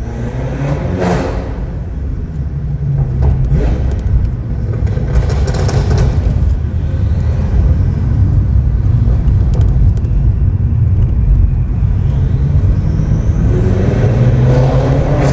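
Stage 2 tuned BMW F10 M5 Competition's twin-turbo V8 accelerating, its exhaust a deep, loud rumble. The revs climb audibly near the end.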